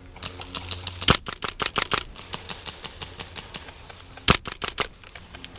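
Airsoft guns firing: quick runs of sharp clacking shots, with the loudest cracks about a second in and again around four seconds in.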